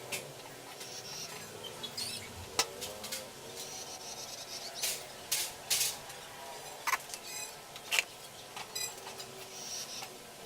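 Hand work on washing-machine parts: scraping and rubbing, with scattered sharp clicks and knocks and a short fast rattle about three-quarters of the way through.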